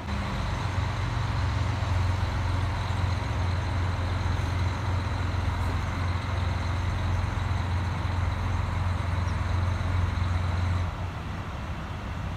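JNR-era diesel express railcar train pulling slowly into a station, its diesel engines running with a steady low drone that drops away about eleven seconds in as the power comes off.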